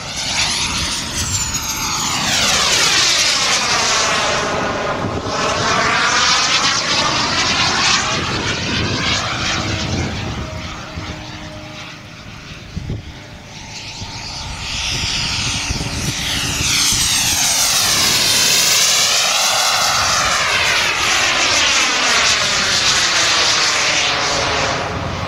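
Small jet turbine on a 50%-scale Fox aerobatic glider model, a loud rushing jet noise with a high whine that swells and fades as the model makes two low passes.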